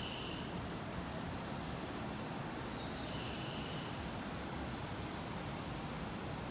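Station platform guide chime repeating a two-note high-then-low 'ping-pong', heard twice about three and a half seconds apart, over steady platform background noise.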